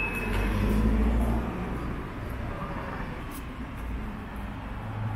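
Street traffic: a passing vehicle's low rumble, loudest in the first second and a half, easing into a steady traffic hum.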